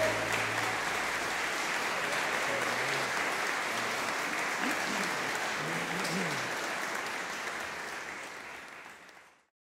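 An ensemble's last held note dies away within the first second, then an audience applauds. The applause fades out near the end.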